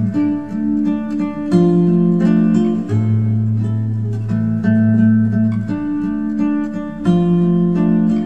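Instrumental background music: held chords over a steady bass line, changing about every one and a half seconds.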